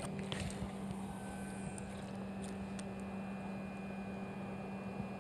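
A steady low hum at an even pitch, over faint hiss, with a few light clicks in the first second.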